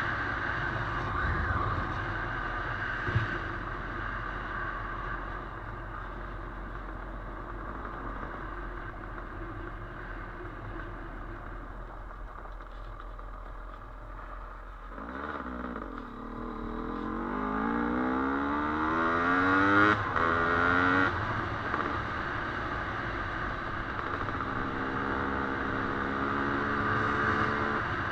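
Dirt bike engine under way with wind and rumble. About halfway through it revs up, the pitch climbing and dropping back several times as it goes up through the gears, then holds a steady pitch near the end.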